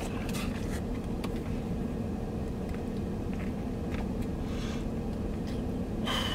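Steady low hum of a truck idling, heard inside the cab, with faint clicks and chewing as sushi is eaten with chopsticks. Near the end there is a short, sharper sound.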